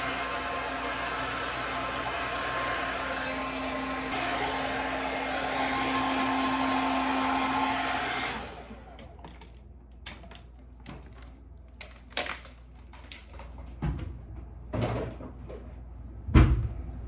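Hand-held hair dryer blowing steadily with a motor hum, switched off a little past the halfway point. After it stops come a few light clicks and knocks, with one louder knock near the end.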